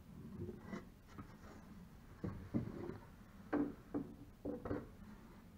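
Hollow wooden knocks and clatter as a plywood locker cover and its cleat are handled against a wooden boat's hull: about six short knocks, the loudest in the second half.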